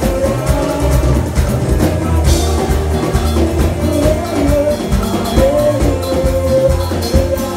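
Loud band music with a drum-kit beat and heavy bass, a held melody line over it, and a cymbal crash about two seconds in.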